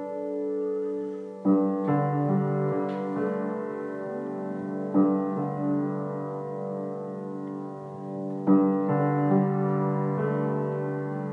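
Piano played slowly: sustained, ringing chords, with new chords struck about a second and a half in, around five seconds and again near eight and a half seconds, and single notes moving between them.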